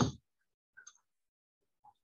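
A short rush of noise dies away at the very start, followed by a few faint clicks a little under a second in.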